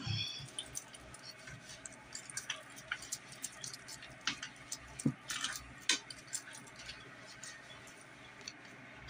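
Hands working locs at a salon shampoo bowl: irregular small clicks and taps with an occasional faint clink.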